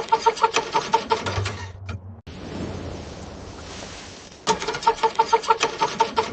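A cold car engine cranking on the starter without catching, in two bursts. Each burst is about two seconds of rapid, even pulses, several a second, and the bursts are separated by a pause of a couple of seconds.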